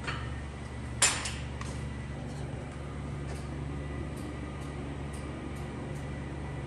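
Steady low hum of a workshop, with one sharp knock about a second in and a few faint light ticks after it.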